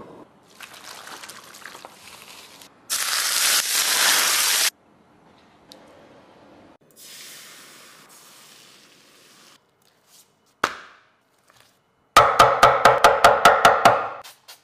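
Food sizzling in a hot frying pan, loudest for a couple of seconds, then a softer sizzle as beaten egg spreads in the pan. Near the end, a single knock followed by rapid knife chopping on a wooden end-grain cutting board, about seven sharp, ringing strokes a second.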